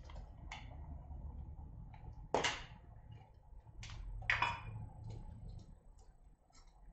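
Hands handling a small plastic pack over bagged building bricks: light plastic clicks and ticks, with two louder brief crinkling rustles of plastic about two and four seconds in.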